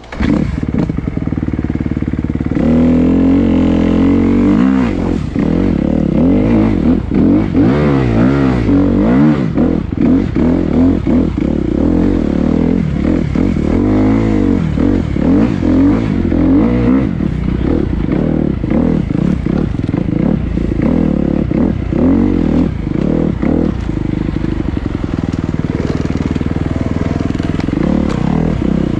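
Dirt bike engine running loudly under the rider, revving up and down with the throttle through the first half, then running more steadily.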